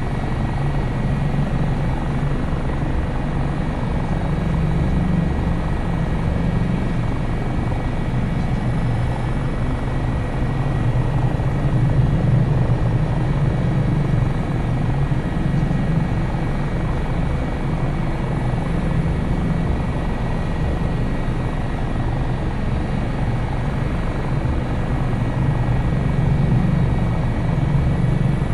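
AS365 Dauphin twin-turbine helicopter running steadily on landing, its rotor and engines making a constant drone with no rise or fall.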